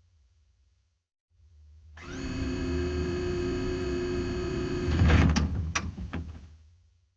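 Printer running. A low hum starts, then about two seconds in a steady mechanical whine with several tones sets in. About five seconds in come a few sharp clacks, and the sound dies away near the end.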